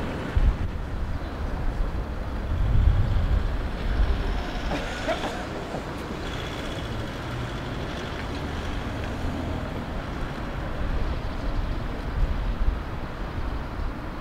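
City traffic noise, a steady hum of passing vehicles, with wind buffeting the microphone in low rumbling gusts near the start and again about three seconds in.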